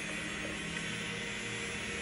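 Handheld battery-powered milk frother running with its whisk spinning freely in the air: a steady motor whir with a low hum.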